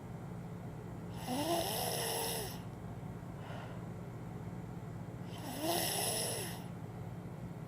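A two-year-old child snoring loudly in sleep. Two long snores about four seconds apart, each rising and then falling in pitch, with a fainter breath between them.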